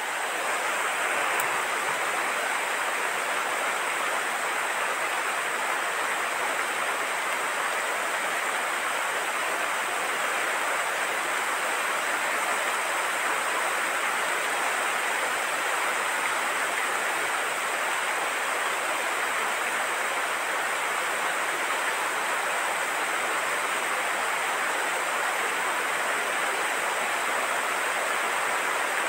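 Steady heavy rain: an even, unbroken hiss with no separate drops or gusts standing out.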